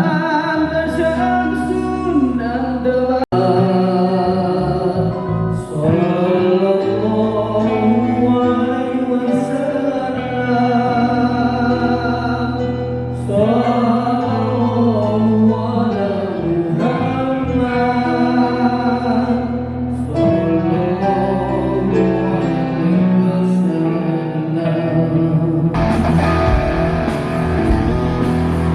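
Live band playing a song, with a wavering lead melody over held bass notes. About three seconds before the end the sound fills out and brightens into a louder rock section.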